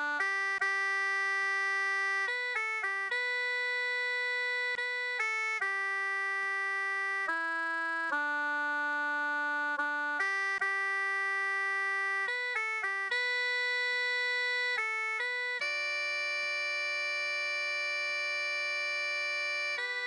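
Instrumental music: sustained chords held for a second or two each, with a few quick changes of short notes, ending on one long held chord.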